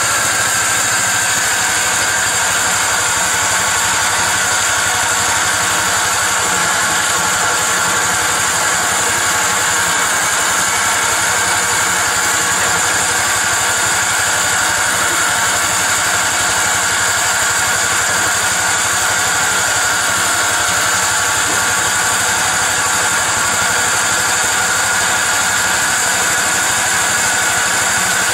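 Harbor Freight portable band sawmill running steadily, its gasoline engine driving the band blade at a constant pitch with a strong high whine from the blade.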